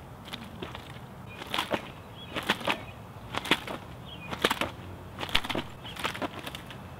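Nunchaku swung in repeated practice drills: a sharp swish-and-slap about once a second, sometimes doubled, as the sticks whip round and are caught.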